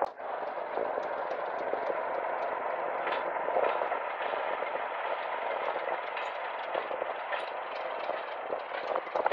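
Commonwealth Railways NT class diesel locomotive NT76 running slowly past, then a passenger carriage behind it, with a steady rumble and scattered clicks from the wheels on the rails.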